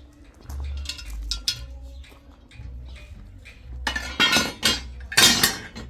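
Hard objects, like dishes and utensils, clinking and clattering in a string of short sharp knocks, with two louder, harsher clatters about four and five seconds in.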